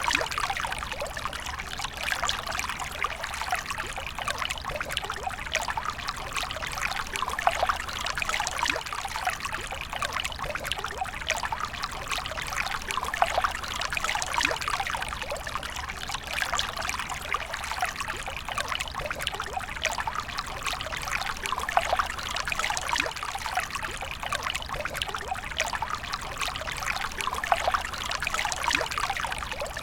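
Water flowing steadily with a continuous trickling splash made of many small, rapid droplet sounds.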